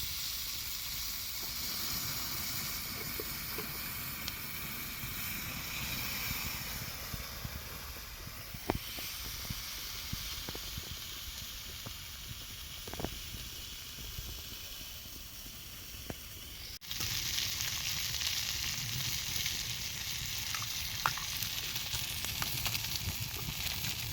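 Green beans frying and sizzling over the heat: a steady hiss with a few sharp pops. About two-thirds of the way through it breaks off for an instant and comes back louder.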